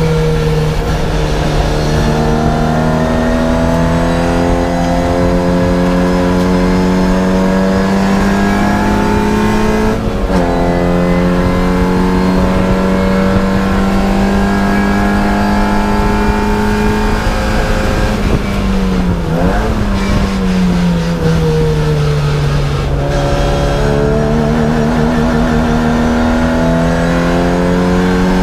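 Racing car's engine at full load, heard from inside the cabin. Its pitch climbs steadily, drops sharply about ten seconds in at a gear change, dips and jumps about two-thirds of the way in as the car slows for a corner, then climbs again.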